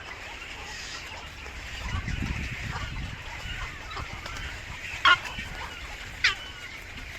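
A bird at its nest gives two short, sharp calls about a second apart, over a steady high background hiss, with a low rumble earlier on.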